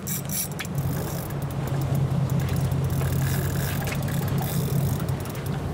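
Fishing boat's engine running with a steady low hum, with wind and water hiss over it.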